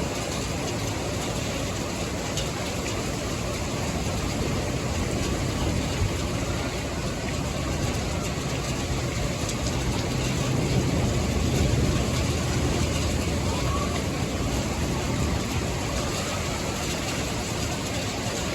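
Thunderstorm: steady rain with a low rumble that swells about ten seconds in and then fades.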